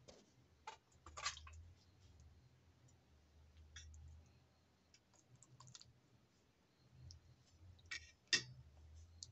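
Faint, scattered clicks and taps of a steel ladle against a steel pot and plate while khichdi is served, the sharpest clink near the end, over a faint low hum.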